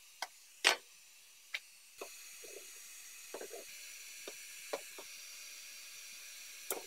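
Scattered clicks, light knocks and short scrapes from a panel splitter prying heat-softened vibration-damping pad off a car's floor pan; the sharpest click comes about half a second in. A faint steady hiss from a heat gun blowing runs under it, a little louder from about two seconds in.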